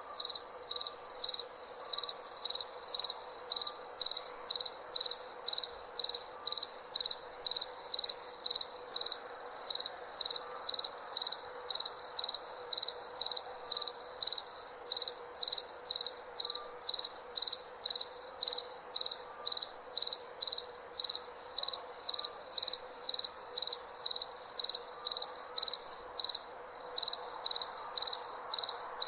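Cricket chirping in a steady, even rhythm of about two high-pitched chirps a second.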